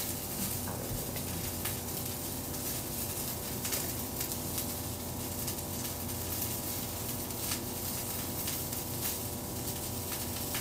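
Ahi tuna steaks sizzling in hot oil in a stainless frying pan, a steady hiss with scattered sharp pops, over a faint steady hum.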